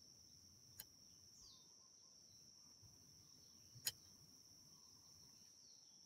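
Near silence with a faint, steady, high-pitched insect trill, broken by two soft clicks, one just under a second in and one near four seconds.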